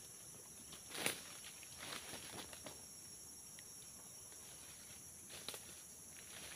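Footsteps rustling and crunching through dry leaf litter and sticks on a forest floor, with a sharp snap about a second in and another shortly before the end.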